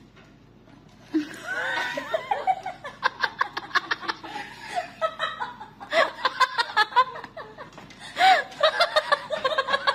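A person laughing, a run of quick, repeated laughs with a few breaks.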